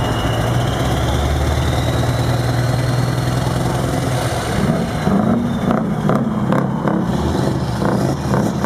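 Scania V8 truck engine idling with a deep steady note, then revved about halfway through and blipped in quick repeated bursts, about three a second.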